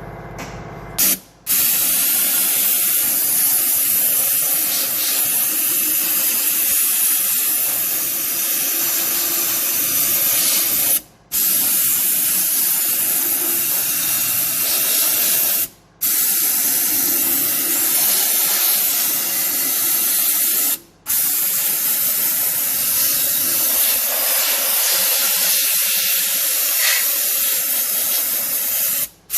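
Pneumatic hand tool running steadily with a loud air hiss as the cylinder-liner seats in the engine block are cleaned. It starts about a second and a half in and breaks off abruptly for a moment about four times.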